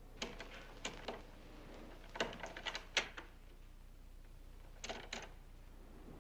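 A door latch and glass-paned French door being worked open: three clusters of sharp clicks and light knocks, the loudest at about three seconds in.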